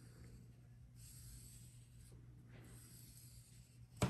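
Faint rubbing of a small rod tool worked over glued paper to press it into a hinge groove, with a short sharp click right at the end.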